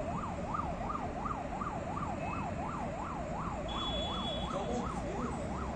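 Emergency vehicle siren in a fast yelp, its pitch rising and falling evenly about three times a second, over the low rumble of road traffic.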